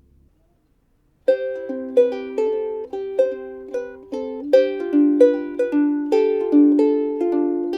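Seilen SLVS-810 soprano ukulele with a Brazilian rosewood body, played fingerstyle. After a moment of silence, a melody of plucked notes begins about a second in, each note ringing on under the next.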